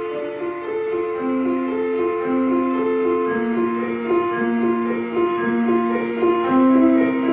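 Slow instrumental music, a melody of held notes each lasting about a second, with no singing.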